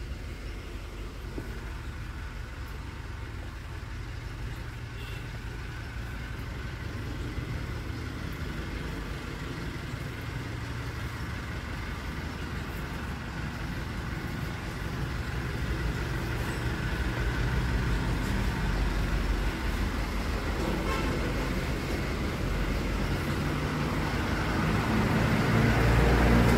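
Street traffic with a bus engine running, growing steadily louder; near the end the bus rumbles loudly as it moves close past.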